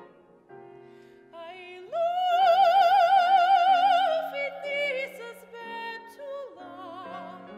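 Mezzo-soprano singing an art song with grand piano accompaniment. After a few soft piano notes, the voice enters and holds a loud high note with wide vibrato, then falls away into a quieter phrase over the piano.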